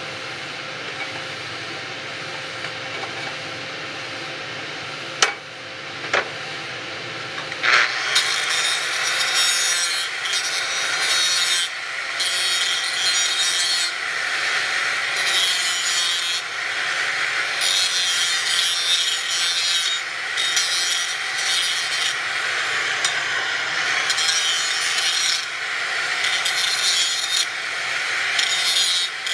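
Metalworking in a fabrication shop: two sharp knocks, then from about eight seconds in a loud, harsh rasping hiss that comes in stretches of a second or two with short breaks.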